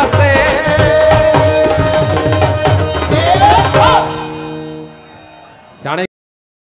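Live Punjabi folk duet music: a singer holds one long note over a steady tabla beat and keyboard, and the note rises at the end. The band stops about four seconds in, leaving a keyboard chord that fades out. A short sound follows, then the audio cuts to silence.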